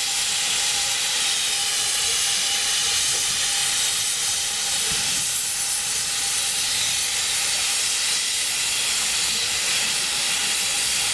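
Small narrow-gauge saddle-tank steam locomotive venting steam, a loud, steady hiss.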